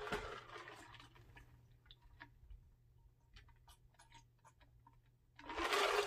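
A person drinking from a glass mug: soft, irregular gulping and swallowing clicks, then a louder breathy exhale near the end as the mug comes down.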